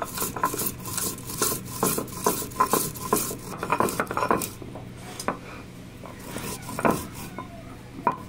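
Stone roller grinding dry-roasted whole fennel, coriander and cumin seeds on a stone grinding slab (shil-nora), a gritty rasping scrape with each stroke. The strokes come several a second for the first four seconds or so, then only a few scattered ones.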